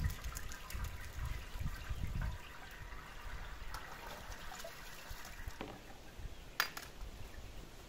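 Water trickling and splashing, strongest in the first two seconds, then fainter, with scattered small clicks and one sharp click about six and a half seconds in.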